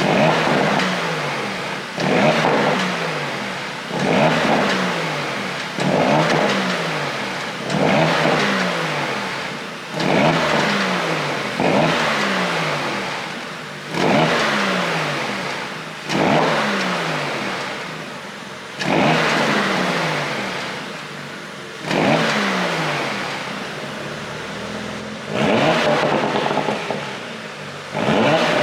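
2018 Porsche Panamera 4S's twin-turbo V6 and exhaust, revved in repeated sharp throttle blips about every two to three seconds. Each blip jumps up suddenly, then the revs fall back and die away. This is a test of the exhaust pops on the overrun from a pop-and-crackle ECU tune.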